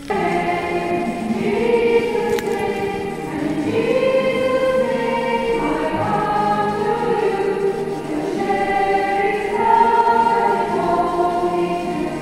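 A choir singing a slow melody in long held notes.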